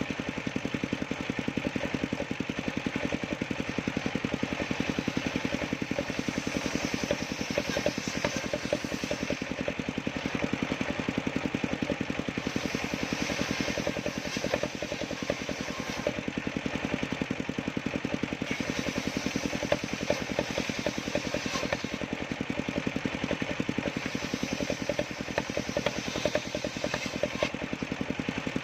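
Engine of a sawmill machine running steadily at an even speed, with a rapid regular pulse.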